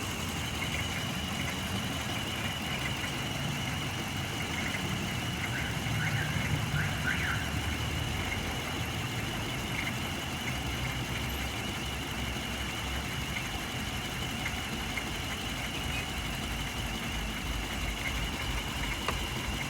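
2005 Hyundai Matrix four-cylinder engine idling steadily. The car is in for a cylinder 2 misfire (P0302) and unstable running.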